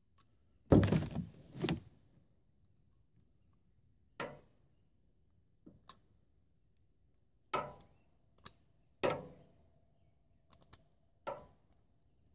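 A dozen or so irregular, sharp knocks and taps, each ringing off briefly; the loudest comes about a second in.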